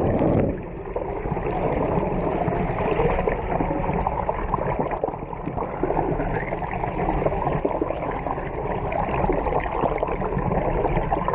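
Muffled underwater water noise from a camera held below the surface: water rushing and gurgling against it, with a steady low rumble underneath.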